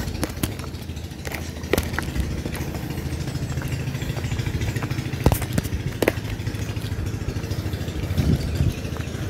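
A small engine running steadily, a continuous low hum, with scattered sharp clicks and clatters of footsteps on loose riverbank stones.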